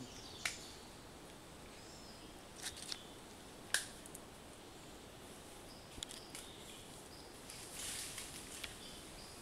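Faint high-pitched rainforest insect and bird calls, broken by a few scattered sharp clicks and one short dry rustle about three-quarters of the way through.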